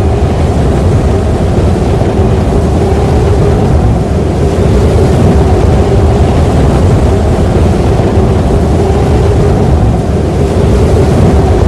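Strong mountain wind howling, a loud, steady rush heavy in the low end with a held tone running through it, the gusts buffeting the microphone.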